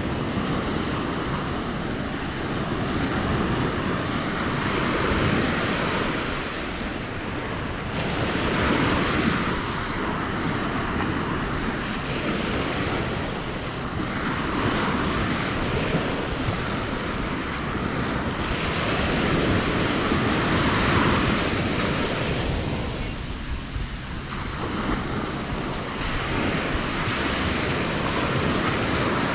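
Small Atlantic surf breaking and washing up a sandy beach, the rush swelling and easing every five or six seconds. Wind buffets the microphone with a low rumble throughout.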